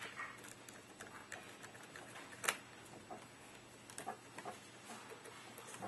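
Faint, scattered clicks of a screwdriver turning the pistol grip's retaining screw on an AK47 electric airsoft gun, with one sharper click about two and a half seconds in.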